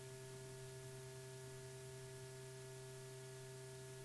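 Faint steady electrical hum over a light hiss: the background noise of an old film soundtrack, with no other sound.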